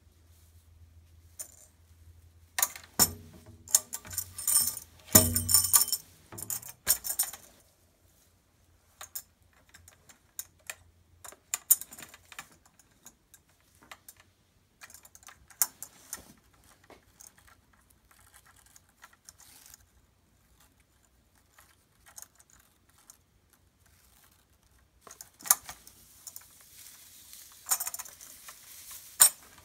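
Metal jingles of a tambourine clinking and rattling now and then as it is handled, with louder bursts of jingling a few seconds in and again near the end, and sparse small clicks between.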